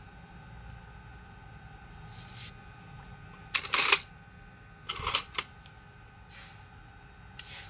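Two short clusters of sharp clicking and clattering, about a second apart, from small hard parts or tools being handled, over a steady low background hum.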